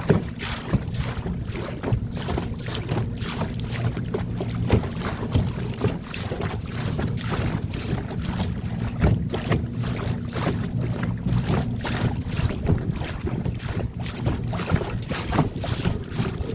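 A small boat's motor running steadily under way, with the hull slapping through choppy, wind-driven waves and wind buffeting the microphone.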